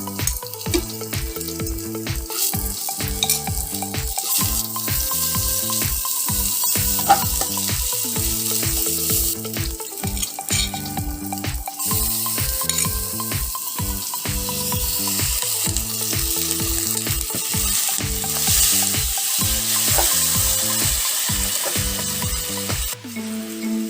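Food frying and sizzling in a pan while being stirred, over background music with a steady beat.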